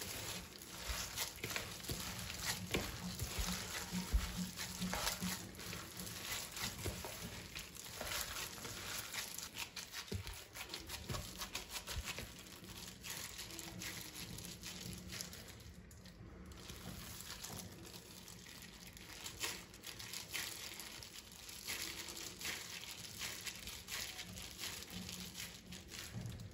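Disposable plastic glove crinkling and raw ground-beef mixture squelching as a hand kneads it in a bowl and squeezes it into oblong köfte, an irregular run of small crackles and rustles.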